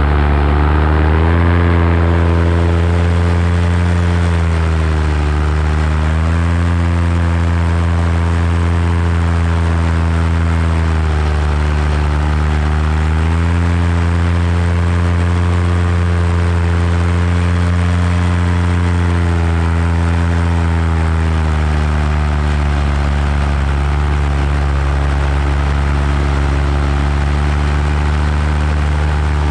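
Paramotor engine and propeller running in flight, its pitch dipping and rising a few times as the throttle changes, then settling lower for the last third.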